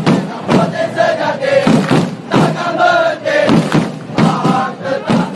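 Large crowd of football supporters singing their club anthem in unison, with a steady drum beat about once or twice a second under the singing.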